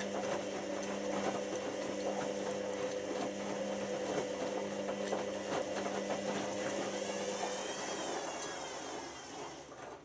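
Hotpoint First Edition washing machine motor running with a steady hum and a constant light rattle. About three-quarters of the way through, the hum stops, a wavering high whine takes over, and the sound dies away. The motor is running at unstable speeds after a replacement control board.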